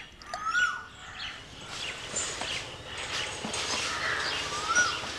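Birds calling outdoors: one bird repeats a short call that rises and falls in pitch, near the start and again near the end, over scattered higher chirps from other birds.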